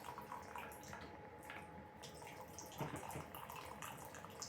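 Tap water running into a sink, with small uneven drips and splashes. There is one louder splash or knock a little before three seconds in.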